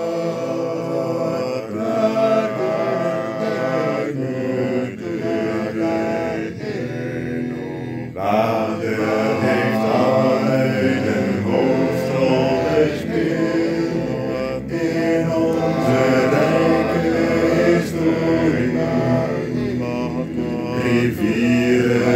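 A cappella vocal arrangement in several parts, all sung by one singer and layered into close harmony, singing Dutch lyrics. The voices grow fuller about eight seconds in.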